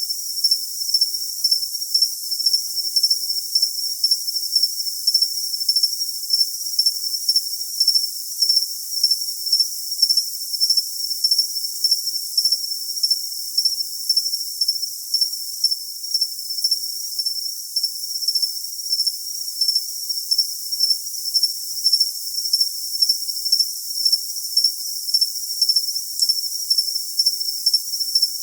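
Cricket chirping steadily: thin, high-pitched chirps repeating evenly, about two a second, with no lower sound beneath them.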